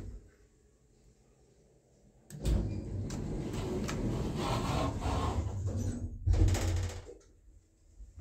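Sliding lift doors, with a sudden thud a little over two seconds in starting a stretch of rumbling movement noise, and another loud thud about six seconds in.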